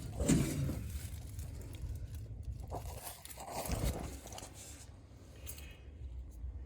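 Faint crunching and scraping handling noises with a few scattered clicks, over a low steady background hum.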